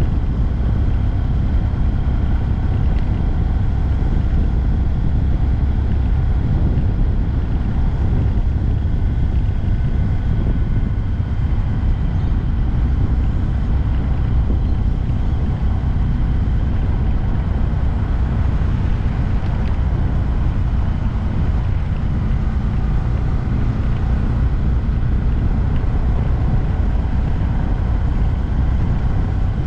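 2022 Honda Grom's 124 cc single-cylinder engine running steadily while riding, under a heavy low rumble of wind on the microphone.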